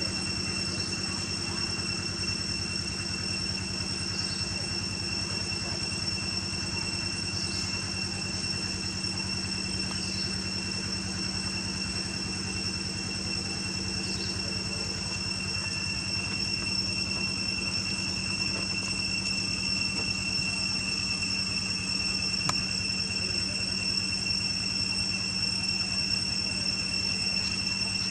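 Steady, even, high-pitched drone of insects, with a low hum underneath. A few faint, short chirps come over it now and then.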